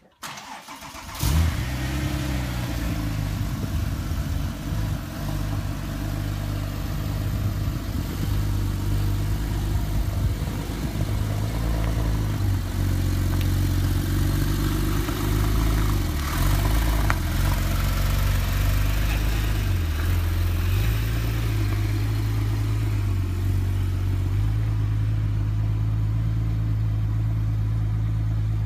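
Porsche 997 Turbo's twin-turbo flat-six starting with a sudden loud flare about a second in, then settling to a steady idle. A few brief rises and dips in the engine note follow as the car moves off at low speed.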